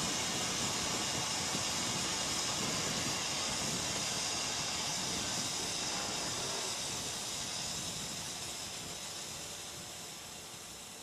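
Race car's onboard fire extinguisher discharging: a steady hiss that slowly fades over the last few seconds as the bottle empties.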